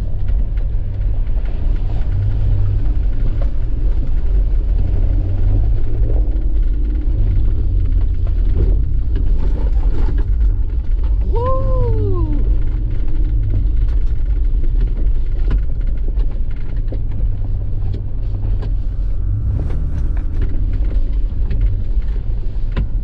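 Steady low rumble of a 4x4 truck driving slowly along a rough, snowy trail, heard from inside the cab. About halfway through comes one short tone that rises and falls.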